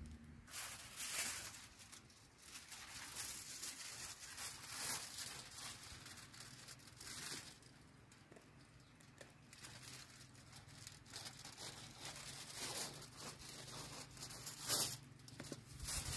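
Aluminium foil being pulled off its roll and torn, crinkling in a series of short irregular bursts.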